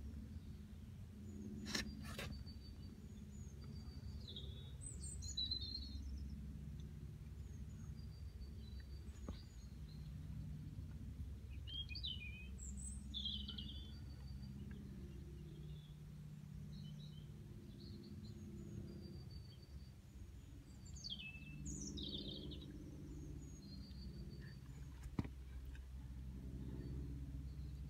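Birds chirping here and there over a steady low background rumble, with two sharp clicks, one about two seconds in and one near the end.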